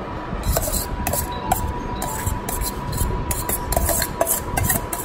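Stainless steel bowl and serving spoon scraping and clinking as biryani rice is scraped out onto a steel plate: a quick run of short rasping scrapes.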